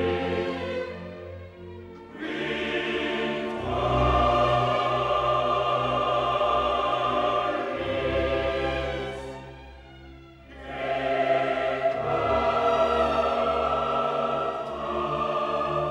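Classical choral soundtrack music: a choir singing long held chords over an orchestra, fading down twice and swelling back.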